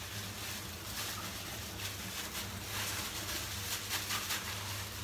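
A plastic bag being washed with water: soft, irregular splashing and rustling over a steady low hum.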